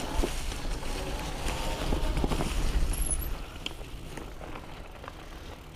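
Wind buffeting an action-camera microphone over the rolling and drivetrain noise of an electric fat bike being ridden, with a faint whine and a few clicks. It gets quieter about three seconds in.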